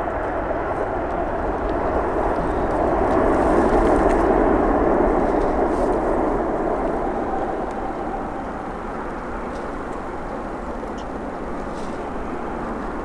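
Jet engine noise from an Air France Boeing 777-200ER: a steady roar that swells to its loudest about four seconds in, then eases to a lower, even level.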